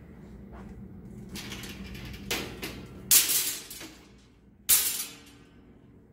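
Clothes being handled on a white metal folding clothes-drying rack: a few sharp rustling, clattering bursts, the two loudest starting suddenly about three and four and a half seconds in.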